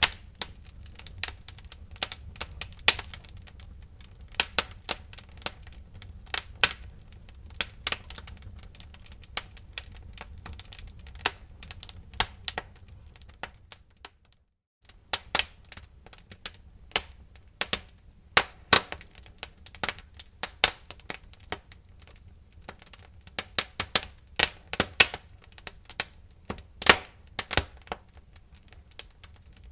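Wood fire in a fireplace crackling, with irregular sharp pops and snaps over a low steady rumble. The sound cuts out for about half a second a little before halfway.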